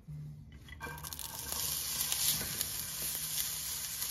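Chopped onion sizzling as it starts to fry in hot oil in an enamelled pan, the sizzle building over the first second or so, with a silicone spatula tapping and scraping as it is stirred.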